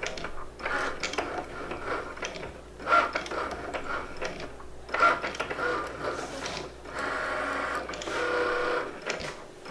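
Cricut Maker cutting machine's motors whirring in short start-stop runs as the tool carriage and mat rollers move, with a steadier run near the end.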